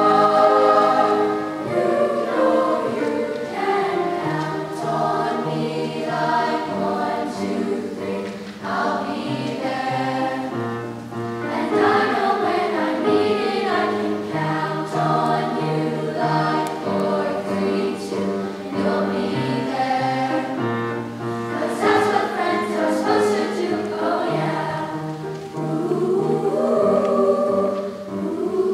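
A middle school choir of girls' and boys' voices singing together, continuously, with brief breaths between phrases.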